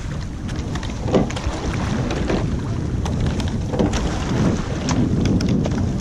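Wind buffeting the microphone over the rush of water along a moving rowing shell, with a few faint clicks from the oars.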